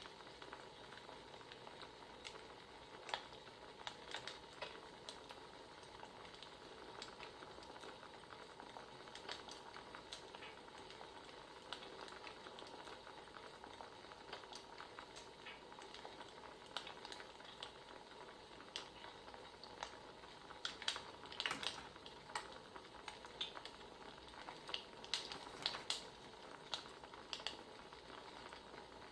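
Crackling wood fire: irregular pops and snaps over a faint steady hiss, coming in small clusters.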